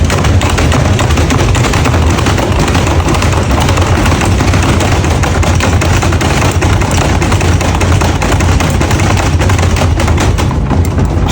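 Washing machine running flat out, shaking and banging in a loud, rapid, continuous clatter over a low motor hum.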